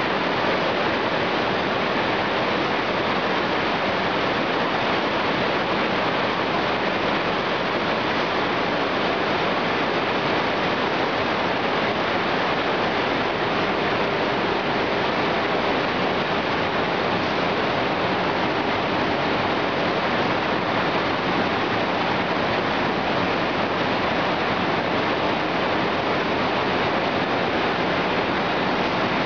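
Several Perfect Card-1000 cotton carding machines running: a steady, even, hiss-like machine noise with no rhythm and no change.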